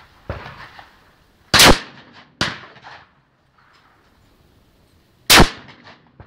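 Shotgun fired twice at clay targets, two loud sharp bangs about four seconds apart, each ringing out briefly over the range. A quieter crack comes shortly after the first shot.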